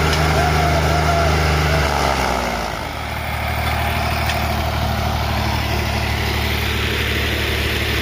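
Farm tractor diesel engines running under heavy load while towing a trailer stuck in a canal; a little over two seconds in the engine note drops and the level dips, then they settle into steady, lighter running.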